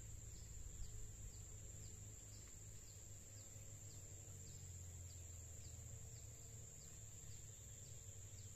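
Faint outdoor insect chorus: a steady high-pitched drone with a short falling chirp repeating about twice a second, over a low rumble.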